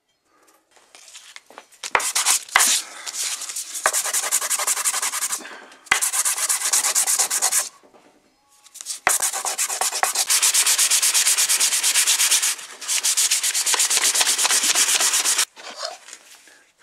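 An oak handle piece is rubbed by hand on a sheet of abrasive paper in a few spells of scratchy scrubbing, with short breaks between them and a few light knocks.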